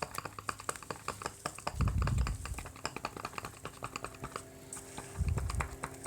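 Rapid, irregular light clicks and taps from hands working over a 6.5-inch woofer during a foam-surround repair, with two dull low thumps about two and five seconds in.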